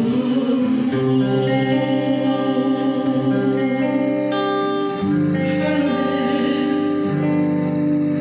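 A woman singing a gospel worship song into a microphone, holding long notes with vibrato, over a strummed guitar accompaniment.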